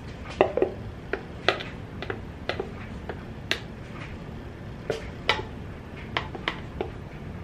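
Irregular light clicks and taps of a plastic stir stick against a plastic measuring cup, about two or three a second, as thick two-part top coat is scraped and poured out of it. A low steady hum runs underneath.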